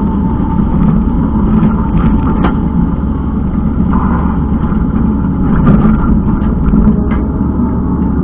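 Kubota skid steer's diesel engine running steadily under load while working the ground, with a few faint clicks on top.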